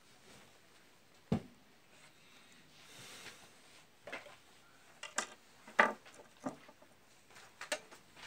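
Handling noise as an appliance's power cable and a small knife are worked by hand: about half a dozen separate light clicks and knocks, the sharpest about a second in and near six seconds.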